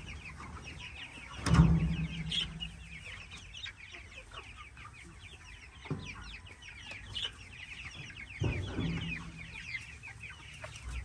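A flock of chickens: many short, high falling cheeps from young chicks, with hens clucking. Two dull thuds, one about one and a half seconds in and another about eight and a half seconds in, and a single sharp tap around six seconds in.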